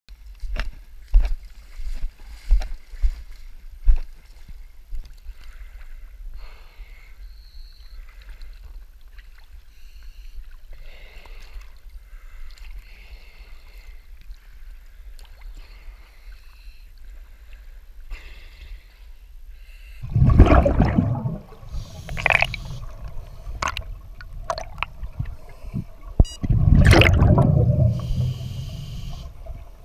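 A few sharp knocks and clicks, then a quieter stretch, then from about twenty seconds in, loud bubbling, rumbling bursts underwater: scuba regulator exhaust bubbles from a diver's exhaled breath, loudest near the end.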